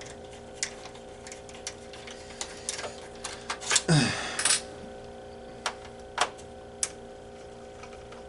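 Scattered small clicks and taps of a screwdriver and screws as screws are backed out of an Xbox 360 case, with a louder scrape about four seconds in. A faint steady hum runs underneath.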